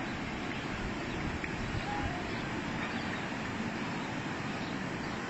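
Steady rushing of muddy floodwater from a flash flood, an even noise with no breaks.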